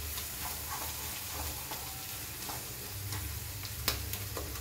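Onion-tomato masala sizzling in oil in a kadai while a spatula stirs it, scraping and clicking against the pan, with one sharper knock near the end.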